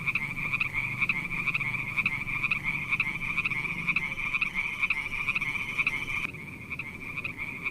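Chorus of pond frogs calling: many rapid, overlapping pulsed croaks in a continuous stream. About six seconds in, some callers drop out and the chorus gets a little quieter.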